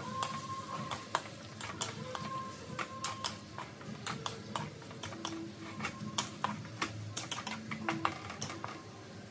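Wooden spatula clacking and scraping against a metal wok while mushrooms and vegetables are stir-fried: irregular sharp clicks, several a second.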